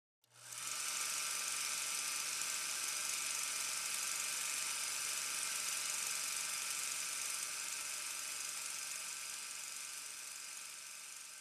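A steady mechanical whir with hiss and a low hum, starting just after the beginning and fading slowly over the last few seconds.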